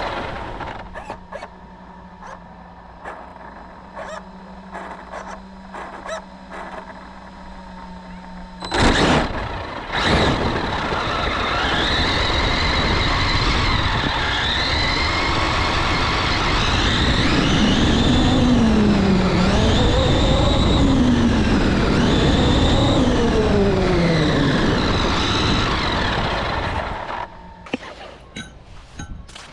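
RC car's electric motor and drivetrain whining, rising and falling in pitch again and again as it speeds up and slows, after a few quiet clicks and two loud knocks about nine and ten seconds in.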